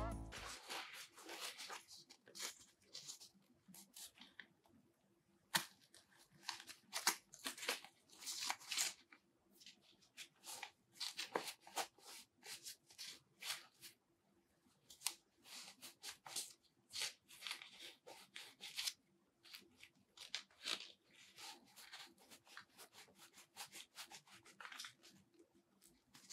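Faint, irregular rustling, rubbing and short scraping as an HO Soccer Legend II goalkeeper glove, with its latex palm and neoprene-like body, is pulled onto a hand and its wrist strap worked.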